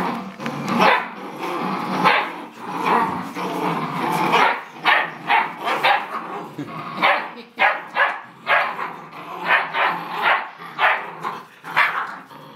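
Puppies play-fighting over a toy, growling and barking: a steady tussle of growls at first, then from about five seconds in a run of short sharp barks, two or three a second, that stops abruptly near the end.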